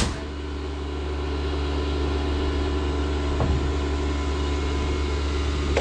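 An engine running steadily with a low, even hum. There is a sharp knock right at the start and a fainter one about three and a half seconds in.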